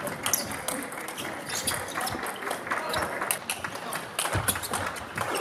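Table tennis ball clicking off the bats and the table in a rally, with voices in the background of a large hall.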